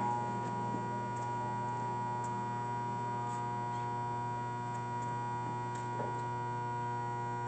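Doall C916M horizontal band saw running free with no cut, its motor and variable speed drive giving a steady hum with a higher whine, with a few faint ticks.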